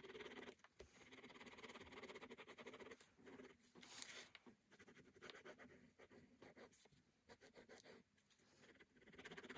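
Faint scratching of a four-colour ballpoint pen hatching on sketchbook paper, in quick runs of short strokes with brief pauses, and one louder scrape about four seconds in.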